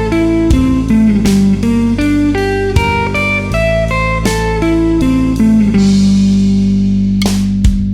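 Guitar playing alternate-picked arpeggios, one note per stroke, climbing and falling in pitch over a steady low bass underneath. About six seconds in a single note is held, followed by a few sharp picked strikes near the end.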